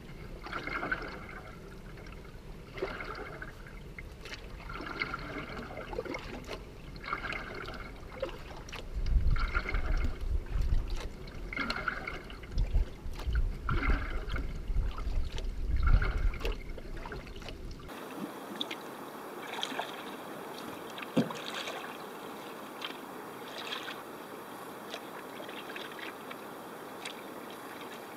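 Canoe paddle strokes in water: a regular swish and splash about every second and a quarter as a double-bladed paddle dips on alternate sides, with a low rumble through the middle stretch. About two-thirds through it changes to a steady, fainter lapping hiss of water with small drips and one knock.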